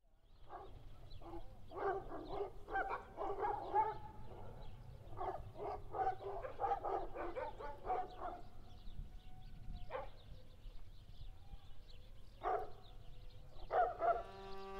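A dog barking repeatedly in quick runs of short barks and yelps, then a few single barks further apart, over a steady low rumble. Violin music begins right at the end.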